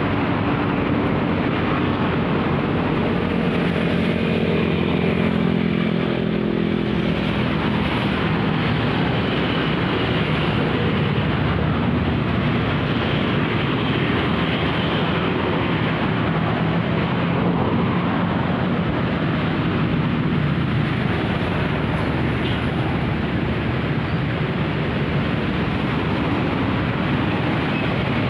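An engine running steadily, its pitch shifting between about three and eight seconds in.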